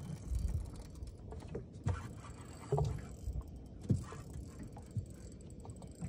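Small boat rocking on calm sea: a low rumble broken by a few irregular dull thumps, as water knocks against the hull.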